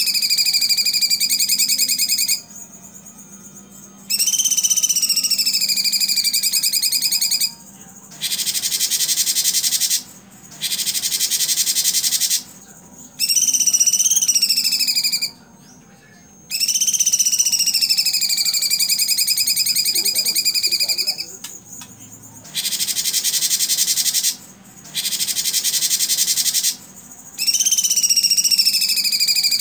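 Cucak cungkok singing its loud 'tembakan' song. Phrases of two or three seconds with short gaps alternate between a falling, buzzy whistle and a very high, dense, rapid-fire rattle, repeated over and over.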